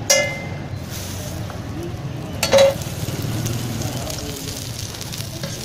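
Patties frying on a flat iron griddle with a steady sizzle, broken twice by a metal spatula clanging against the griddle: once at the very start and once about two and a half seconds in, each with a short ring.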